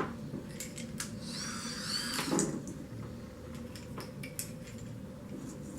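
Scattered light clicks and taps of small hardware being handled, with a brief high, wavering squeak about a second and a half in.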